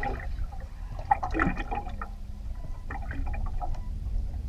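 Seawater slapping and gurgling against a boat hull over a steady low wind rumble on the microphone, with a few sharp clicks and knocks, the loudest about a second in.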